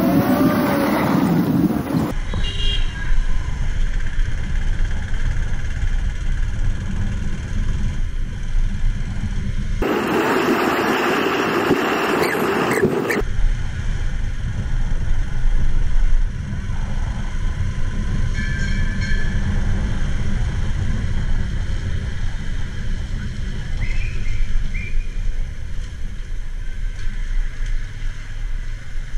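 Low wind and road rumble on the microphone of a camera on a moving two-wheeler in city traffic, with a louder rushing stretch of about three seconds in the middle. Short vehicle horn beeps sound twice in the second half.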